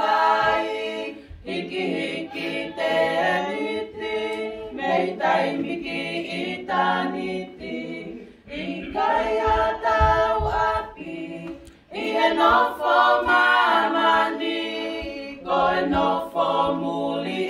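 Women's choir singing a hymn in Tongan, unaccompanied, in sustained phrases with short breaks between them.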